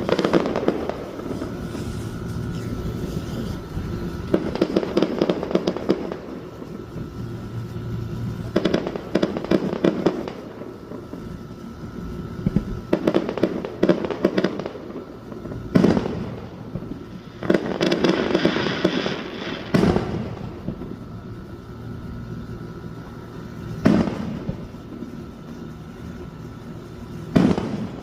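Fireworks display: shells bursting in sharp bangs a few seconds apart, about eight in all, with stretches of crackling between them.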